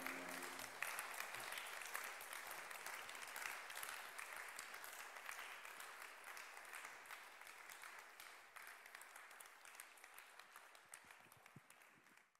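Audience applauding at the end of a lecture, a dense patter of many hands that slowly dies away and then cuts off abruptly.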